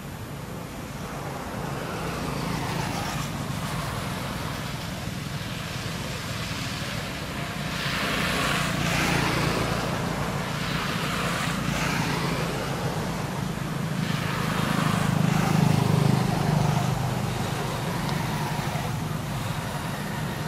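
Road traffic passing: a steady low engine hum with tyre noise that swells louder and fades twice, about eight seconds in and again around sixteen seconds.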